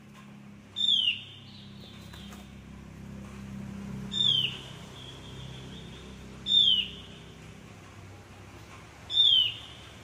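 Javan grey-throated white-eye (cucak gentong, opior jawa) calling four times, a few seconds apart: each call a short, sharp note that falls in pitch. A low steady hum runs underneath.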